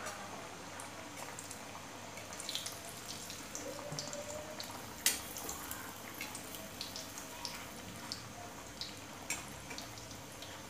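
Water chestnut flour puris deep-frying in hot oil in a steel kadhai on a high flame: a steady sizzle with scattered pops and crackles. A slotted metal spoon turns them in the pan, with one sharp click about five seconds in.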